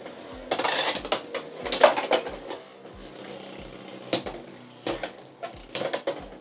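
Beyblade X spinning tops battling in a plastic stadium: irregular sharp clacks and rattling collisions as the two tops hit each other and the stadium walls.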